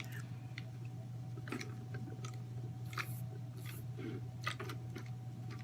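Close-miked chewing with soft, scattered mouth clicks, over a steady low hum.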